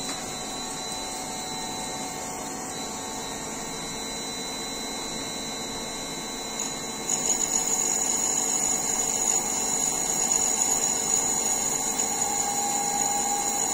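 CNC lathe spindle turning steadily at about 1000 rpm. About seven seconds in, the boring tool, fed in by the handwheel, starts cutting inside the bore: the noise grows louder and a high steady whine comes in.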